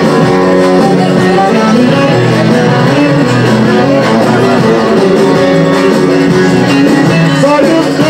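Loud instrumental music led by a plucked string instrument, playing steadily.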